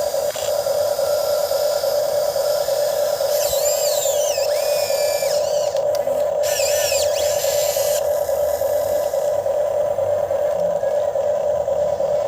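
RC excavator's electric hydraulic pump motor running with a steady whine, with higher whining tones sweeping up and down for a few seconds in the middle as the arm moves.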